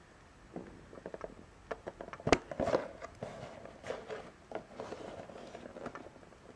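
Small cardboard blind box handled in the hands: scattered taps, scrapes and rustles of fingers on the card as it is turned over, with one sharper knock a little over two seconds in.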